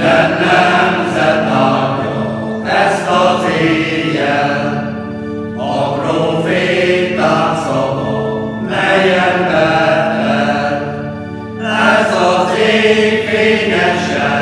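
Mixed choir singing a Hungarian Christmas carol in phrases of a few seconds each, over a steady held low note.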